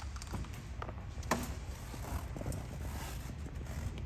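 Low steady room hum with a few light knocks and taps, one sharper click about a second and a half in: handling noise and movement of the person filming around the parked vehicle.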